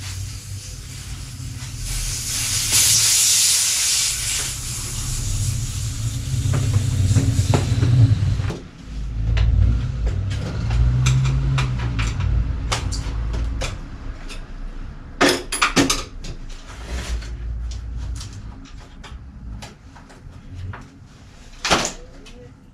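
A low rumble with a hiss over the first few seconds, then scattered sharp metallic clicks and knocks of parts and tools being handled at a bicycle.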